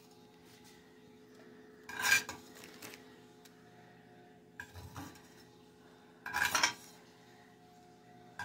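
Metal fork scraping and clinking against a dinner plate in three short bursts about two seconds apart, over a faint steady hum.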